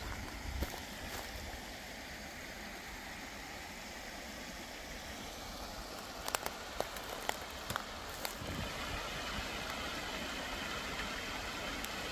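Small mountain stream trickling and splashing over rocks, a steady rushing that grows a little louder in the second half. A cluster of sharp clicks comes about halfway through, and there is some wind rumble on the microphone near the start.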